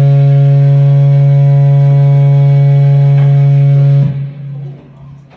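A loud, steady, low amplified drone, one unchanging pitch with a stack of overtones, that cuts off abruptly about four seconds in, leaving only faint background sounds.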